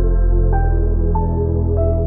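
Background music: calm ambient synth music with sustained notes over a held bass, new notes coming in about every half second.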